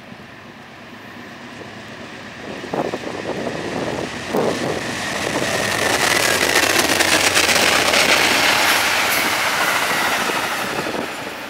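Amtrak passenger train, led by GE P42DC Genesis locomotive #1 with a second locomotive behind, passing on the line. Its wheel and rail noise swells as it approaches, is loudest about seven to nine seconds in, with a few clacks along the way, then begins to ease as the cars go by.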